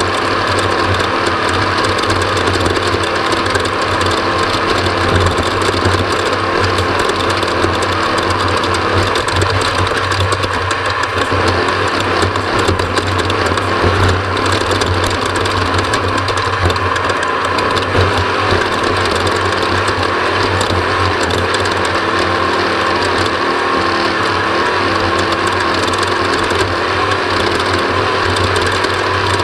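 Off-road race vehicle's engine running hard and steady, heard from on board.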